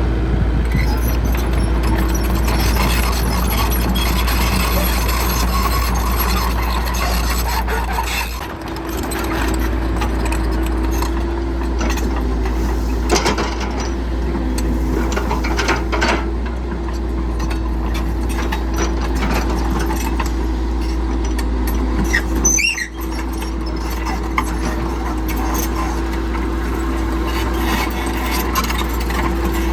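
Heavy construction machinery working: a steady low engine drone with a steady whine above it, and higher squealing noises. The sound breaks off and changes abruptly twice, about a third of the way in and again about three quarters of the way in.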